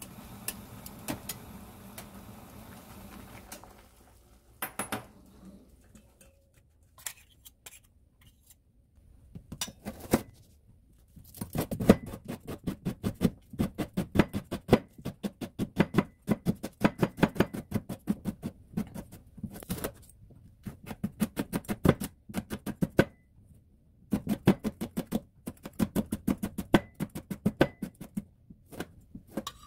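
Water boiling in a pot as greens are turned with tongs, then, after a pause, a knife chopping rapidly on a plastic cutting board, mincing green onion, garlic and red chili peppers in quick runs of strokes with short breaks.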